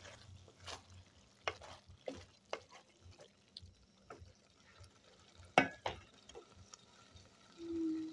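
A wooden spoon stirring macaroni in a thick sauce in a metal pot, with scattered soft scrapes and taps against the pot. There is one sharp knock about halfway through.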